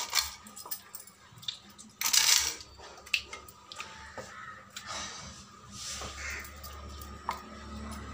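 Scattered knocks, clicks and scraping as a fish is cut into pieces on a floor-mounted curved cutting blade (kathipeeta) over a wooden base, with a louder scrape about two seconds in.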